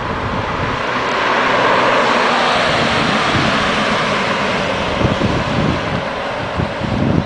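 Lamborghini Diablo's V12 running as the car drives past: a broad roar that swells about two seconds in and then slowly fades, with wind buffeting the microphone.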